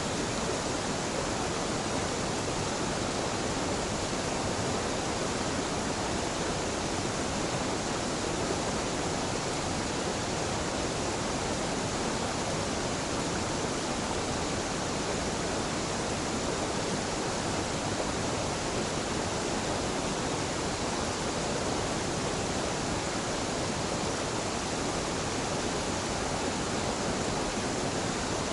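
Small waterfall where two mountain streams meet: a steady, even rush of falling water that holds the same level throughout.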